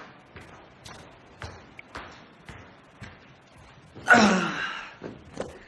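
Faint footsteps on a hard floor, about two a second. About four seconds in, a man lets out a loud sigh that falls in pitch as he drops onto a beanbag.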